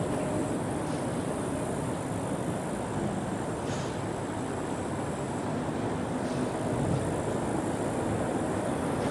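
Steady rumble of road traffic crossing the concrete bridge overhead.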